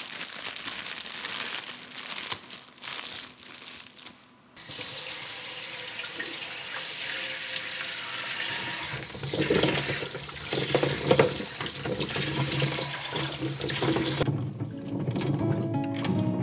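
A plastic bag of green plums crinkling and rustling, then a kitchen tap running steadily into a salad spinner bowl of green plums, the water churning louder as the plums are stirred in it. About two seconds before the end it cuts suddenly to background music.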